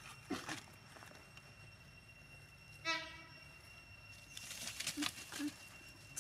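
Rustling and handling noises as a shoulder bag is rummaged through and macaques are hand-fed, with one short, sharp, high-pitched call just before three seconds in, over a steady high whine.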